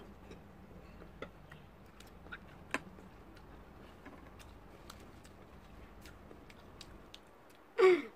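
Faint, scattered small clicks and taps from chewing and from handling a tissue and utensils at a table, over a low steady hum, with one sharper click about three seconds in. A short voice sound near the end.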